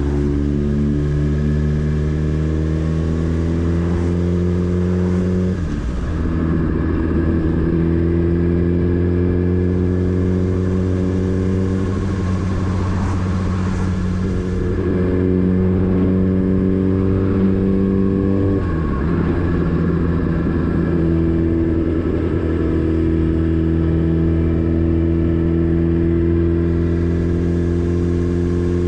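Motorcycle engine running under way, its note climbing slowly, then breaking and resettling at a new pitch about six seconds in and again near nineteen seconds.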